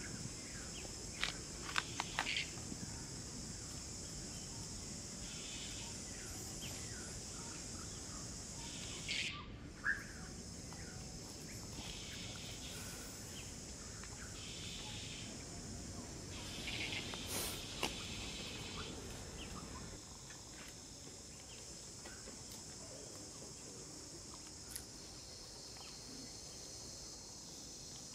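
Outdoor ambience: a steady, high-pitched insect drone, with a few short chirps and clicks that cluster about two seconds in and again near ten seconds.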